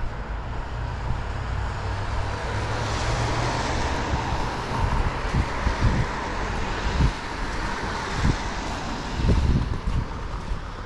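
A road vehicle passing: tyre hiss and engine rumble swell over a few seconds and then fade. Several short low thumps come in the second half.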